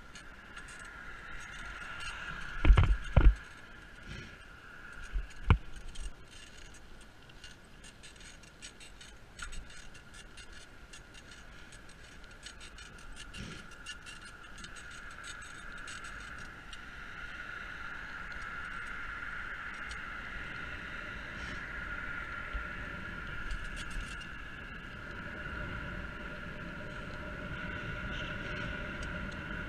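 Bicycle ridden along pavement: steady tyre and road noise with small rattles and clicks. A few sharp knocks about three and five and a half seconds in as the bike jolts over rough ground, and the noise grows a little louder after the middle.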